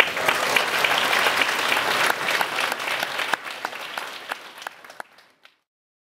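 Audience of schoolchildren applauding, the clapping thinning out and dying away about five seconds in.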